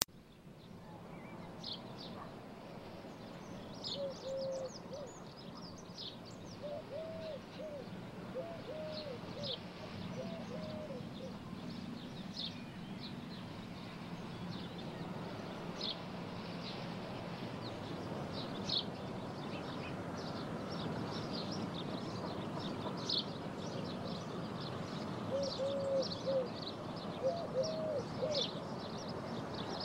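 Birds singing, with short high chirps repeating throughout. A pigeon coos in short phrases of low notes from about four seconds in, and again near the end, over a steady low background hum.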